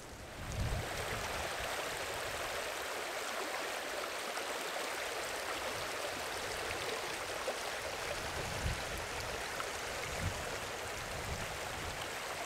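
Steady rush of a flowing stream running over rocks. A few short low thumps break in briefly, about half a second in and twice near the end.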